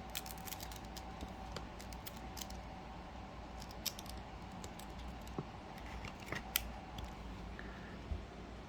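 Trading cards being handled at close range: a run of small sharp clicks and scrapes, busiest in the first couple of seconds, with a few more scattered clicks later, over a faint steady hum.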